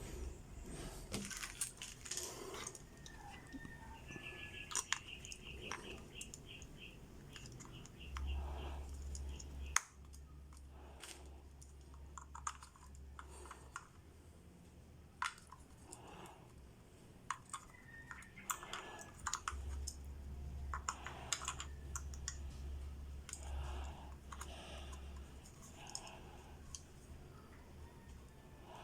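Scattered small plastic clicks and taps of a digital clamp meter being handled while its battery compartment is opened and AAA cells are fitted. A short pulsing high tone comes about four seconds in, and a low hum runs for a couple of seconds and later for several seconds.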